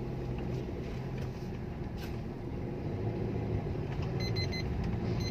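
Maruti Suzuki Ertiga running at a crawl on a short test drive, a steady low engine hum. About four seconds in comes a quick run of short electronic beeps.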